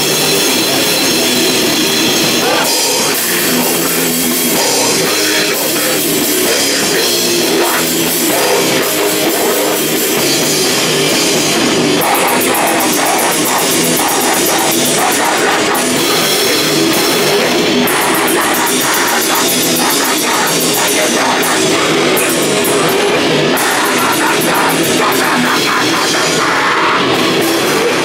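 Grindcore band playing live: a loud, dense wall of heavy music with a drum kit, stretches of very fast drumming.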